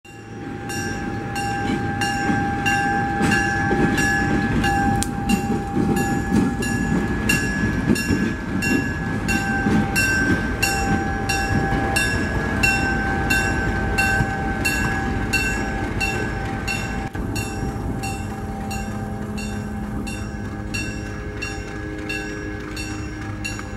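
Southern Pacific 3100 diesel locomotive passing with its engine running, its rumble strongest over the first half and then slowly easing. A grade-crossing bell rings steadily about twice a second throughout.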